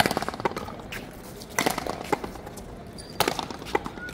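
Rally in Cuban paleta frontón: sharp cracks of wooden paddles striking the ball and the ball hitting the wall, coming in pairs, a loud crack then a softer one about half a second later, every second and a half or so.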